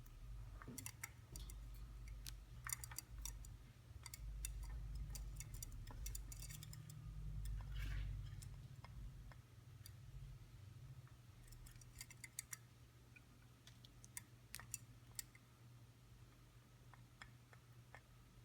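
Budgies pecking and nibbling at sweet potato: small irregular beak clicks, busier in the first half and again near the end, over a low steady hum.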